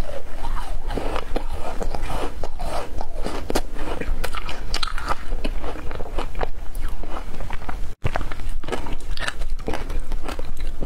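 Crunching and chewing of frozen passion fruit ice, a dense run of sharp, irregular crunches as the ice is broken up between the teeth. The sound breaks off for an instant about eight seconds in.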